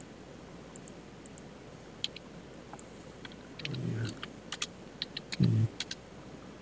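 Scattered computer mouse and keyboard clicks, irregular and sharp, with two short low hums from a person's voice about four and five and a half seconds in.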